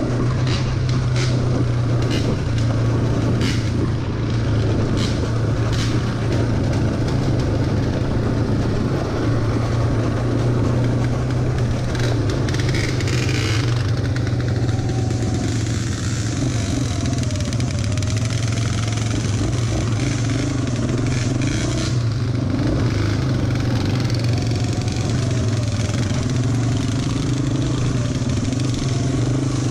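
ATV engine running steadily at low trail speed, a constant low drone. Sharp clicks and knocks come through several times in the first few seconds and again around twelve seconds in.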